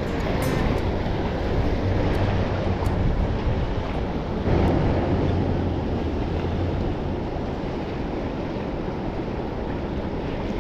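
Steady wind rumbling on the microphone, with sea surf washing against jetty rocks beneath it. The low rumble eases about seven seconds in.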